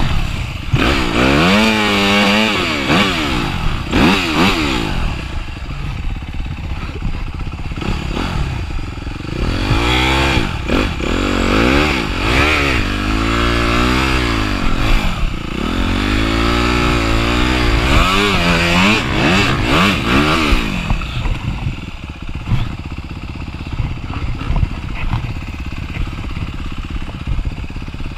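Dirt bike engine heard close up from the rider's seat, revving up and falling back over and over as the bike accelerates and shifts across the track. About 21 seconds in, the engine settles to a lower, steadier note with some clatter.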